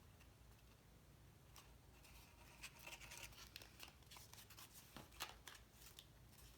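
Faint handling of cardstock pieces: light rustles and small ticks of paper being pressed and shifted. They begin about a second and a half in, over a low steady room hum.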